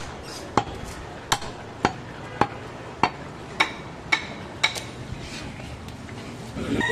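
Heavy butcher's cleaver chopping goat meat on a wooden stump block: eight sharp strikes, about two a second, stopping a little before five seconds in.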